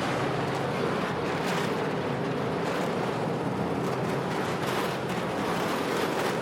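Steady, even rushing noise, like wind or rushing water, with a faint low hum under it.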